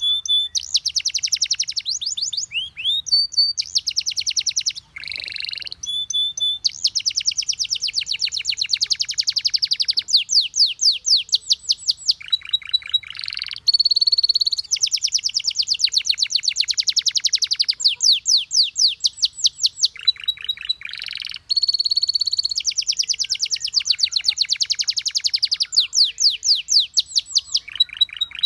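Domestic canary singing: long rolling trills of very fast repeated notes, alternating with short held whistles, one phrase after another with brief pauses between them.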